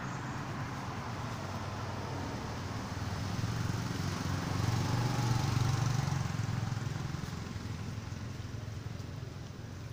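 A motor engine running, growing louder about three seconds in, loudest around the middle, and easing off again a few seconds later.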